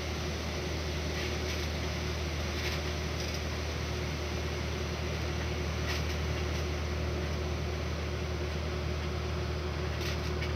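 A steady low mechanical hum with a faint steady tone above it and a hiss over the top, and a few faint clicks now and then.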